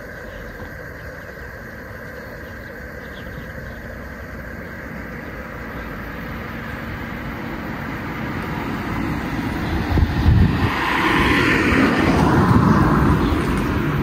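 A car approaching and passing close by, its tyre and engine noise building steadily and peaking about ten to thirteen seconds in.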